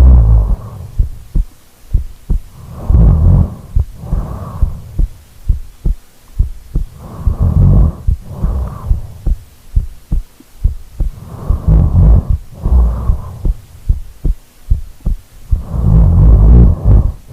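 A person snoring: a loud, rattling snore about every four seconds, each in two parts, a longer one and then a shorter one, with small irregular clicks in the pauses between.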